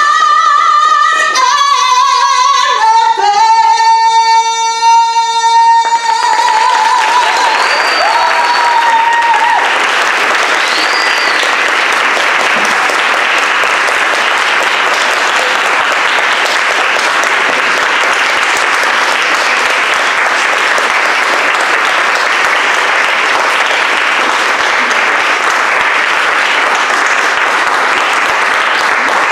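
A woman's voice holding the long, high final notes of a song, fading out about six seconds in, followed by a roomful of people applauding steadily.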